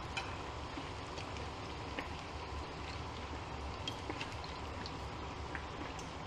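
Breaded sandwich deep-frying in hot oil in a wok: a steady sizzle with scattered small pops and crackles.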